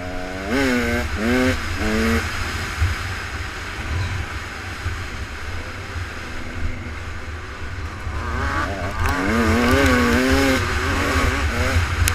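Offroad racing engines revving hard over a steady low rumble. The pitch climbs and drops in quick sweeps around the start, then again more strongly from about eight seconds in.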